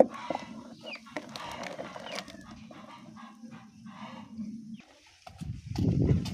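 Chickens clucking, with scattered clicks and a steady low hum underneath; about five and a half seconds in, a loud low rumble takes over.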